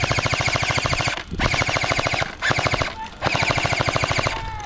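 Airsoft gun firing on full auto in several quick bursts, each a fast, even rattle of shots about twenty a second, with short pauses between bursts.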